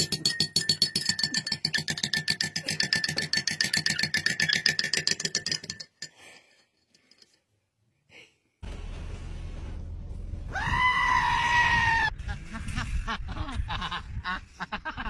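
A goat bleats once, loud and drawn out for about a second and a half, past the middle, with shorter sounds around it. Before that, a fast, even rhythmic sound with a steady high tone runs for about six seconds, then stops for a couple of seconds of near silence.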